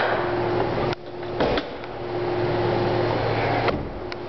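Steady mechanical hum with a held low tone. It drops out briefly about a second in, and a few short clicks come near the end.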